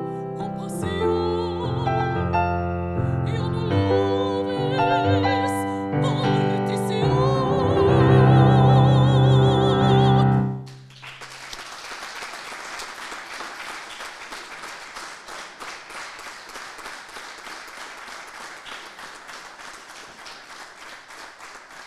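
A woman singing in operatic style with a strong vibrato, accompanied by a digital piano, ending on a loud held note about ten seconds in. The music stops and the audience applauds.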